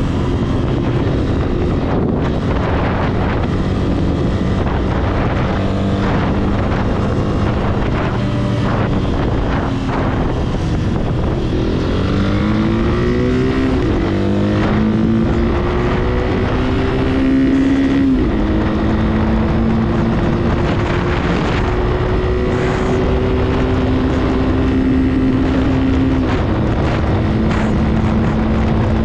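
Italika RT200 200 cc single-cylinder motorcycle engine at speed under hard acceleration, with wind rushing over the microphone. The revs climb and drop back at each of several upshifts, at about 14 and 18 seconds in and again near the end, then hold high.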